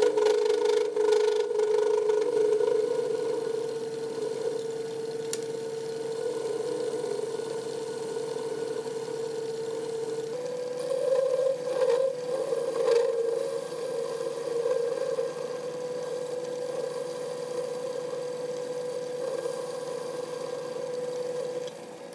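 1936 Atlas 12-inch metal lathe running with a steady whine while a high-speed steel tool faces the end of a steel bar in very light passes, a few thousandths deep, kept shallow to stop the lathe chattering. The pitch steps up slightly about ten seconds in, followed by a few brief rougher cutting sounds.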